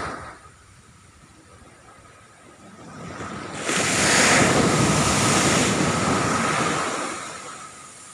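Ocean waves breaking on a beach: a surge swells about three seconds in, runs loud for a couple of seconds as the wave breaks and washes up, then fades away near the end.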